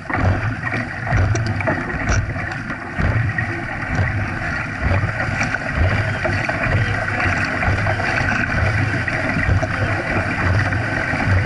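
Dragon boat paddles digging into the water in a steady stroke rhythm, with water rushing and splashing past the hull and wind on the microphone.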